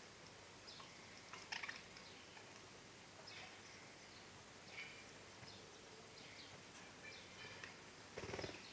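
Budgerigars chirping faintly in short, scattered calls, with a sharper call about one and a half seconds in and a louder burst near the end.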